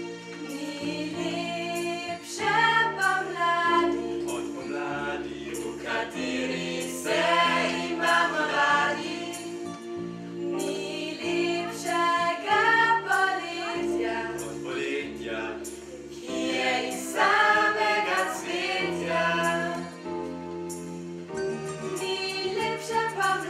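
A small group of voices singing a song together over a steady instrumental accompaniment of held chords.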